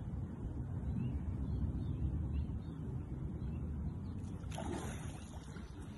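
Steady low wind rumble on the microphone beside the river, with a brief sharper rustle about four and a half seconds in.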